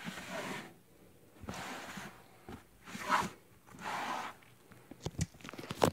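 Fabric storage bin being pulled out of a cube shelf by its fabric handle: several soft swishes of fabric rustling and scraping, then a few light clicks near the end.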